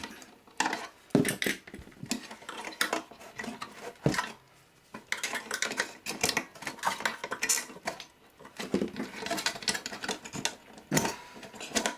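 Irregular metallic clicks, clinks and scraping as a plug-in circuit module is worked loose and lifted out of the Collins 51Y-7 ADF receiver's metal chassis.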